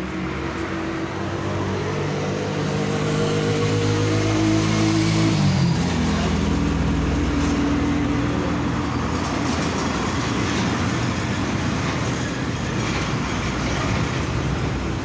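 An engine running steadily with a loud rumble and a humming drone; the drone drops in pitch about five and a half seconds in.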